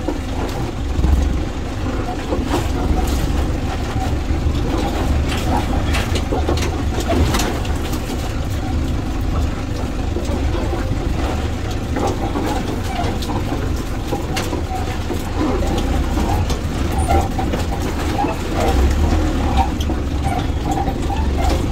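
A vehicle loaded with barrels of water driving along, its engine a steady low rumble with frequent knocks and rattles over the top.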